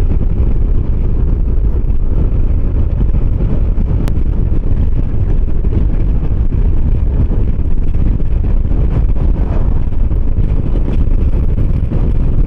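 Wind rushing over the microphone together with the steady running of a 125 cc motor scooter ridden at road speed.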